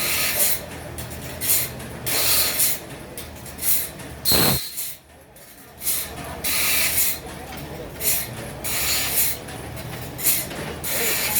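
Sawmill machinery running: a steady low hum under a hissing noise that swells and fades about once a second. A sharp sound about halfway through is followed by a brief near-dropout.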